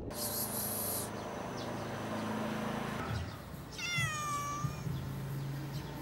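Domestic cat meowing once, a single call about a second long that falls slightly in pitch, a little past the middle.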